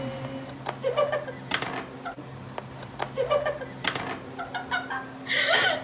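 Knife cutting limes on a plastic cutting board: a few sharp taps and one louder scraping stroke near the end, over a steady low hum.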